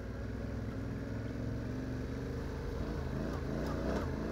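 Yamaha Ténéré 700's parallel-twin engine running steadily under load while riding a rough dirt track, its revs rising a little near the end.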